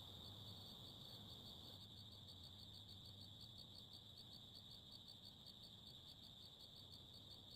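Faint insects calling: a steady high-pitched trill with an even, rapid pulsing, several pulses a second.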